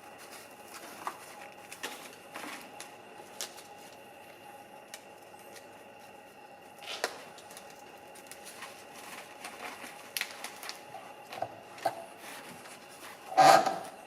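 Scattered light clicks and knocks of objects being handled in a small room, over a steady faint hum. A louder scraping knock comes just before the end.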